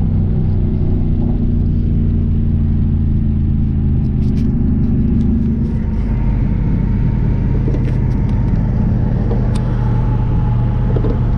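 Dodge Challenger R/T Scat Pack's 392 Hemi V8, with its loud exhaust, running hard at freeway speed and heard from inside the cabin. It is a steady drone whose tone shifts about six seconds in.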